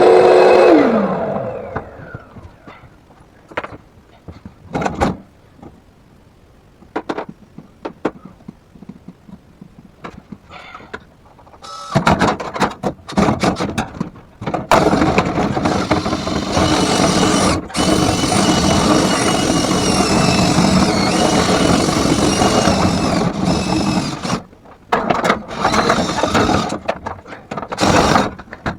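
An electric motor of the dryer-vent cleaning gear spins down, its pitch falling, about a second in. Scattered knocks and clicks follow. About twelve seconds in a motor starts up again with a loud rushing, scraping noise, cut off briefly a few times.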